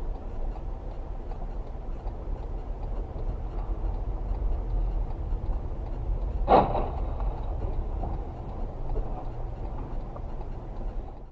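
Steady low rumble of a car's engine and tyres heard from inside the cabin, with a single sharp knock about six and a half seconds in.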